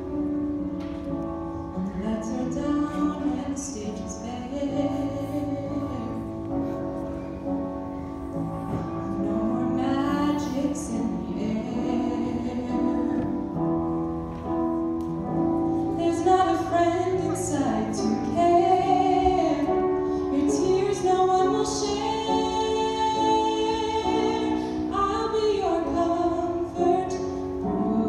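A teenage girl singing solo with piano accompaniment, held notes over sustained piano chords.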